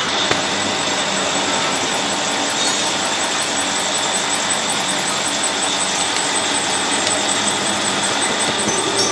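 Machine-shop machine running steadily with a constant dense noise and a thin high squealing tone, typical of metal being machined.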